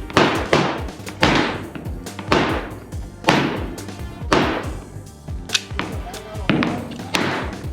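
Background music with a steady beat, a strong hit about once a second over a sustained bass line.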